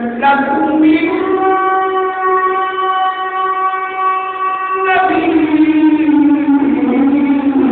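A man's voice in chanted recitation, holding one long steady note for several seconds, then sliding down in pitch through a melodic turn.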